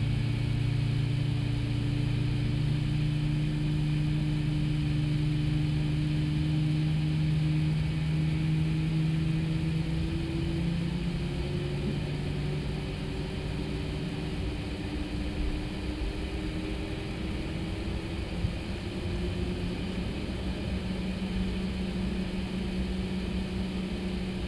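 Airbus A321neo's number-two engine spooling up during its start, heard from the flight deck. It is a steady engine hum whose tones shift slowly upward about halfway through as the engine accelerates toward idle.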